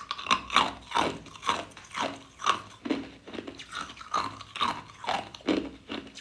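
Clear ice cubes being crunched between the teeth, chewed in a steady rhythm of about two crunches a second.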